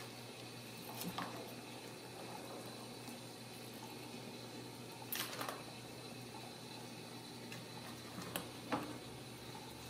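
A few sharp plastic clicks and knocks, the loudest about five seconds in, from kittens batting a ball around a plastic circular track toy, over a steady hiss.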